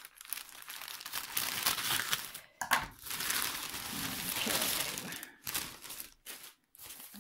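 Plastic postal mailer bag crinkling and rustling as it is handled and opened by hand, in several stretches with brief pauses.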